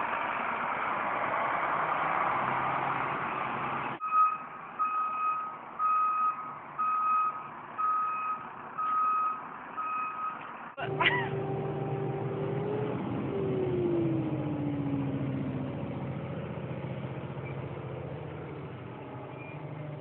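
Concrete mixer truck's reversing alarm beeping at about one beep a second over diesel engine noise, then a truck's diesel engine running steadily with a tone that slides down in pitch.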